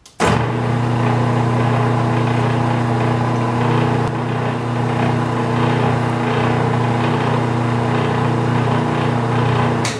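Metal lathe running at its slowest speed, 50 RPM, while it power-feeds a spiral-flute tap into a blind hole. The motor and gearbox give a steady hum that starts abruptly just after the beginning and dies away as the machine is shut off at the end.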